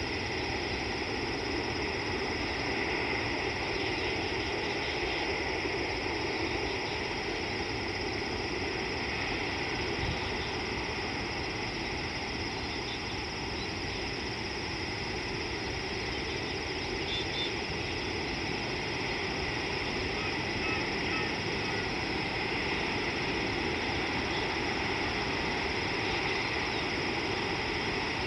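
Steady outdoor bush ambience: a continuous high insect chorus over an even background hiss, with a few faint short chirps now and then.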